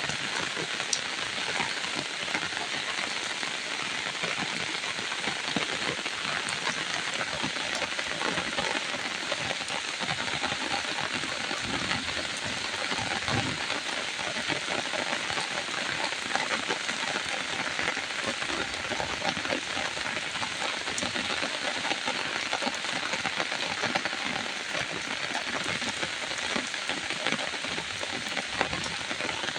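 Steady rain falling and pattering on surfaces, a dense even hiss of many small drop impacts that keeps on without a break.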